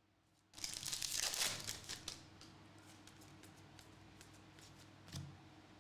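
Trading card pack wrapper crinkling as it is torn open, for about a second and a half beginning half a second in, then quieter rustling and ticks of cards being handled.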